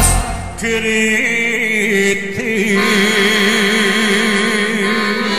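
Accordion folk band ending a song: the beat drops out at the start and the accordions and keyboard hold a closing chord while the singers sustain one long wavering note.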